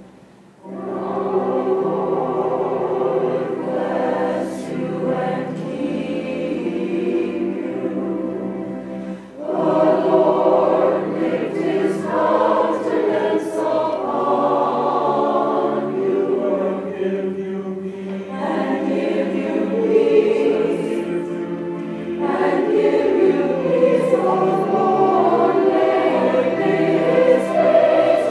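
Mixed church choir singing together in long phrases. The voices come in about a second in after a short hush, with brief breaks between phrases.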